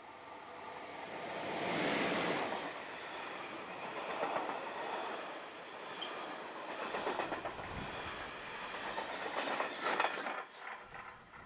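Red SBB electric locomotive and its train passing close by: wheels rumbling and clattering on the rails, loudest about two seconds in. A quick run of sharp wheel clacks comes near the end, and then the sound drops away.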